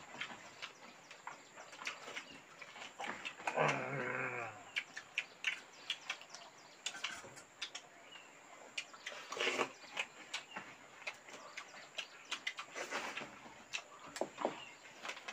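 Close-up eating sounds of people eating rice and fish by hand: frequent short mouth clicks and smacks of chewing. A goat bleats once, about three and a half seconds in, a wavering call lasting about a second.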